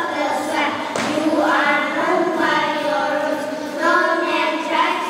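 A group of young children reciting a poem in unison, in a sing-song chant with long drawn-out syllables.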